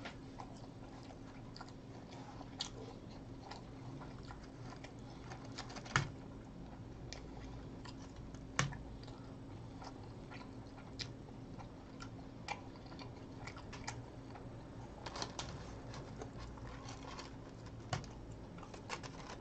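A person chewing food with small wet mouth clicks, and a few sharper clicks, the loudest about six and eight and a half seconds in, over a faint steady hum.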